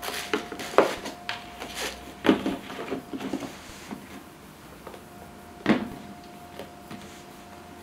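Cardboard shoe box and paper shoe bag being handled: paper rustling with several dull knocks, the sharpest about a second in and others at about two and a half and six seconds, as the lid is closed and things are set down on it.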